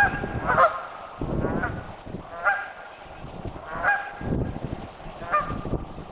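A large bird calling repeatedly with short, nasal honking calls, about five in a row, each a second or so apart.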